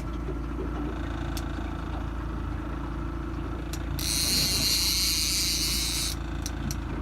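A boat's engine running steadily at trolling speed, with a fishing reel's drag buzzing for about two seconds near the middle as a hooked king salmon pulls line off.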